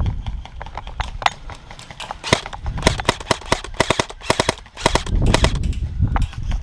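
Airsoft guns firing: sharp snapping shots in quick strings of several a second, thickest in the middle, with low rumbling handling noise at the start and again about five seconds in.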